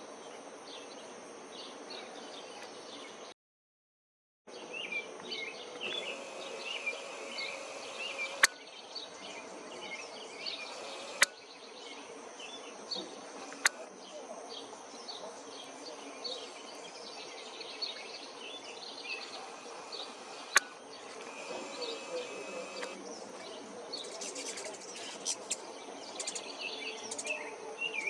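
Many short bird chirps over a steady outdoor background, with a few sharp clicks scattered through. The sound cuts out completely for about a second, three and a half seconds in.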